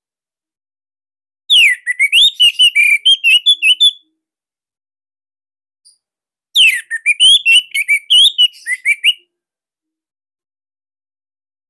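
Orange-headed thrush (anis merah) singing two loud song phrases a few seconds apart. Each phrase opens with a falling whistle and runs into fast, varied warbling notes.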